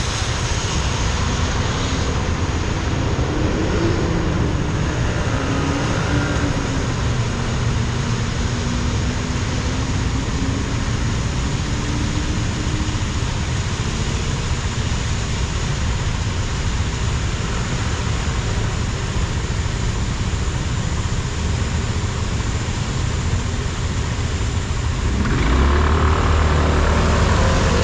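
Car driving: steady road and tyre noise over a low rumble, with a faint engine hum that drifts up and down in pitch. The noise grows louder about 25 seconds in.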